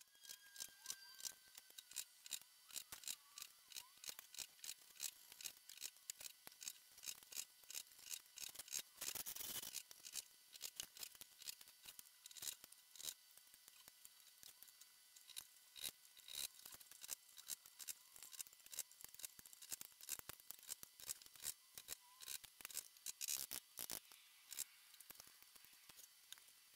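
Faint, rapid, irregular metallic clicks and small scrapes from a hand tool working the nails and metal corner trim off an old wooden trunk panel. A longer scrape comes about nine seconds in.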